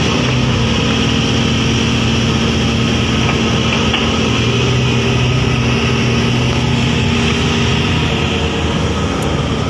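Sumitomo hydraulic excavator's diesel engine running steadily at close range, a constant low, even drone.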